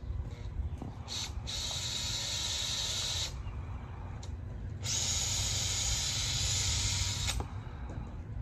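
Power drill driving screws into lumber on a wooden arbor frame, running in two spells of about two seconds each, starting and stopping abruptly.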